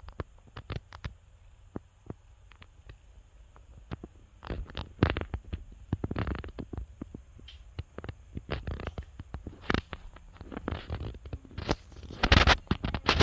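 Thunder crackling and rumbling in irregular sharp cracks and short bursts, with the loudest burst about twelve seconds in.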